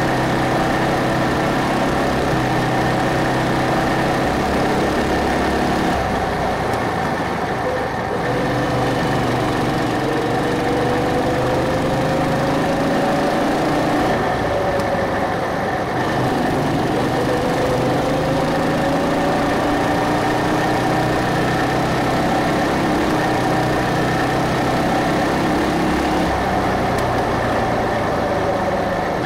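Go-kart engine running continuously as the kart is driven round a track, its pitch climbing as it speeds up and dropping several times as it slows.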